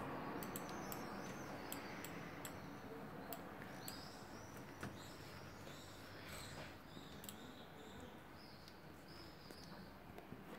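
Faint room noise with scattered light clicks in the first few seconds, then a series of short, faint high-pitched chirps.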